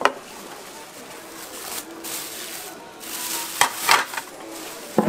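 Kitchen knife chopping boiled pig offal on a wooden cutting board: a sharp knock at the start, two quick chops a little before the end of a stretch of hissing, scraping noise, and another knock near the end.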